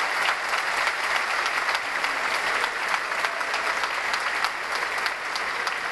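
Church congregation applauding: many hands clapping in a dense, steady round of applause.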